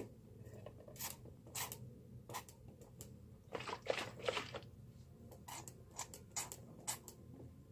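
Sticky homemade glue slime being squished and worked in the hands: scattered short clicks and pops, with a denser run of squelching about halfway through.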